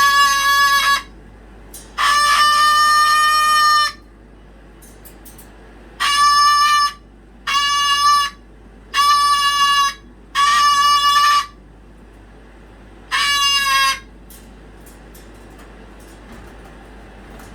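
A pet animal crying over and over: seven long, steady-pitched, shrill calls of about one to two seconds each, separated by short pauses, then a pause of a few seconds at the end.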